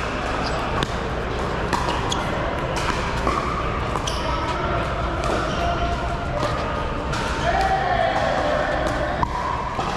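Paddles striking a hard plastic pickleball in a doubles rally: a string of sharp pops, roughly one a second, echoing in a large indoor hall over a steady murmur of background voices.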